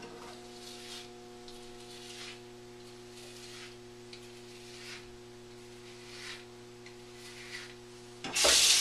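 Faint scraping strokes of a HeadBlade Sport razor drawn back over a lathered scalp, several in a row, over a steady electrical hum. Near the end a tap is turned on and water runs loudly.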